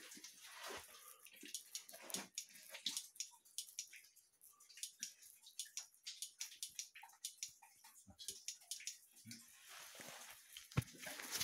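Faint water drips and small splashes, with many irregular little clicks and knocks scattered through, in a wet mine passage.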